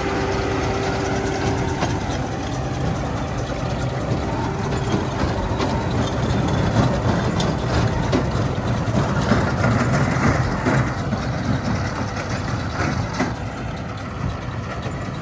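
Kubota tractor's engine running steadily while it pulls a hay baler working through a windrow of cut pasture, with the baler's mechanical clatter and a few sharper knocks in the later part.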